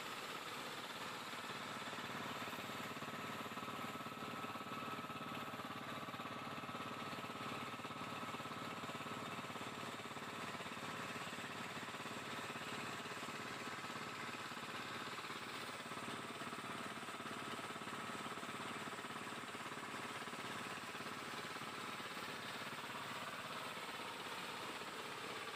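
Outrigger boat's engine running steadily while the boat is under way.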